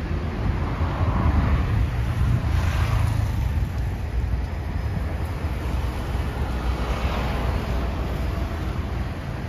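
Wind buffeting a phone's microphone: a steady, fluttering low rumble, with a broader hiss swelling up twice, about two and a half and seven seconds in.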